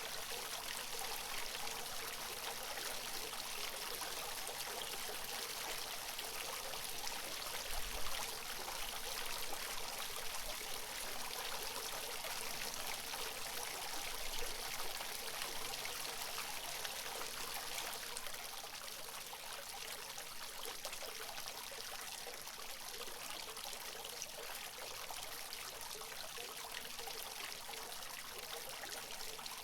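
Water from a natural fountain splashing and trickling steadily, a continuous even hiss of falling water. A couple of brief low thumps come partway through, and the flow sounds a little quieter in the last third.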